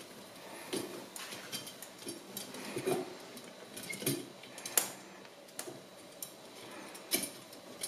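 Light, irregular metallic clicks and scrapes of steel bicycle spokes knocking against one another as a spoke is bent and threaded under the crossing spokes while lacing a wheel.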